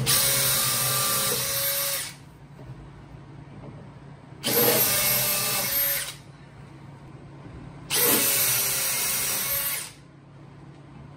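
Cordless drill driving 1.25-inch screws through the side panels of two clamped cabinets. It comes in three steady runs of whine, each about two seconds, with pauses between.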